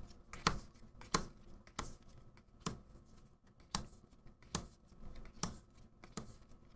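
Magic: The Gathering cards being flipped one at a time through a freshly opened booster pack, each card giving a short flick or snap as it slides off the stack. About a dozen of these come at uneven intervals.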